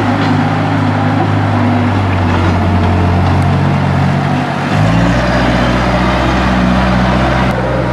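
Bobcat skid-steer loader's engine running steadily under work, its note shifting about five seconds in.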